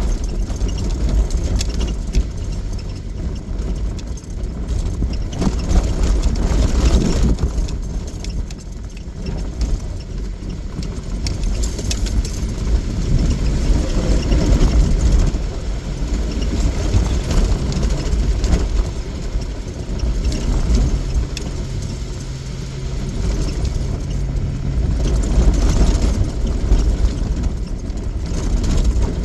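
Off-road vehicle's engine running as it drives a rough, muddy trail, the engine note rising and falling with the terrain while loose things in the cab rattle and jangle.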